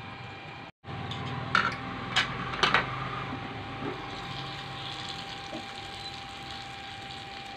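Chicken sizzling inside a closed double-sided grill pan, a steady hiss, with a few clicks and knocks of the pan being handled about two seconds in.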